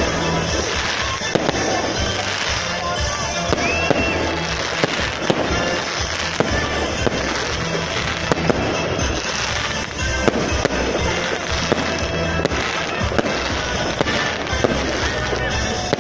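Fireworks display: aerial shells bursting in many sharp bangs at an irregular pace, several a second at times, with crackling between them throughout.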